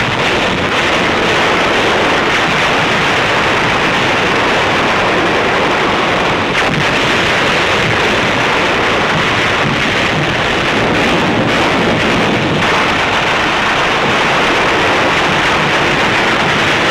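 Dense, steady roar of naval gunfire with no single shots standing out, muffled on an old film soundtrack.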